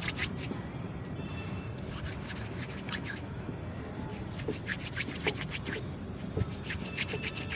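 Hands kneading and rolling a lump of M-seal two-part epoxy putty between the palms to mix its two parts: soft rubbing with scattered clusters of small clicks, over a steady low background rumble.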